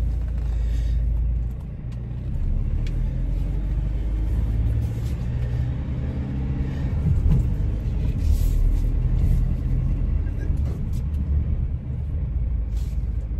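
Steady low rumble of a van, heard from inside its cab.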